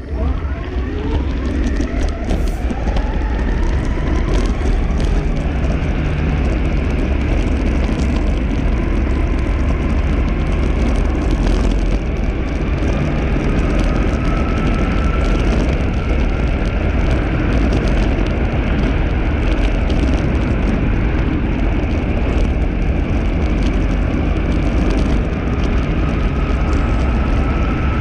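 Electric mountainboard's twin 6374 brushless motors and gear drive whining. The pitch climbs as the board accelerates over the first few seconds, then holds high and edges up again twice. Under it runs a steady rumble of the wheels on coarse asphalt.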